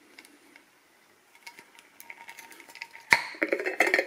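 The metal lid of a vacuum-sealed glass jar being handled and unscrewed: faint ticks, then a sharp click about three seconds in, followed by a quick run of clicks and rattles of the lid against the glass.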